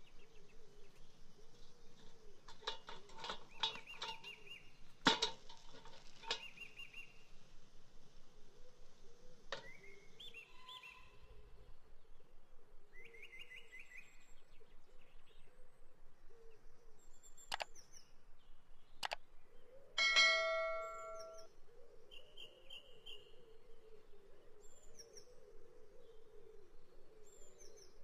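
Woodland birds chirping, short high calls coming every few seconds. A few sharp clicks with a brief ringing tail come a few seconds in, and a louder short ringing note about twenty seconds in.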